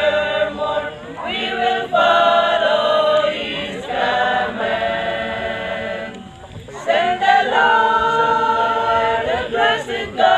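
Small mixed choir of men and women singing a hymn unaccompanied, in long held notes, with a short break between phrases about six seconds in.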